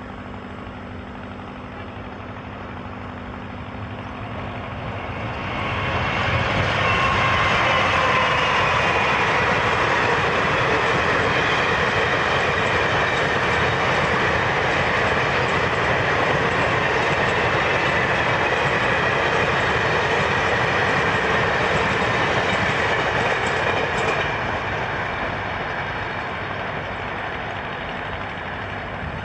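A long electric-hauled passenger train of blue coaches passing on an electrified mainline, its wheels running on the rails. The noise builds over a couple of seconds about five seconds in, holds steady for nearly twenty seconds as the coaches go by, then eases off near the end as the train moves away.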